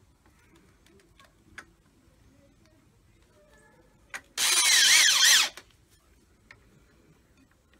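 Cordless drill run in one burst of about a second, its motor whine wavering up and down in pitch as the trigger is worked, with a short click just before it.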